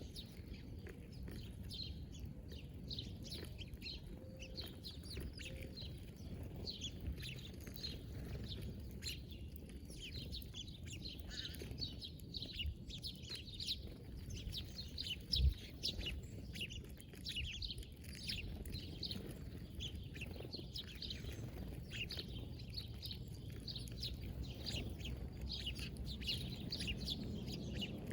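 Small birds chirping continuously in many short, high notes over a steady low rumble, with one sharp low thump about halfway through.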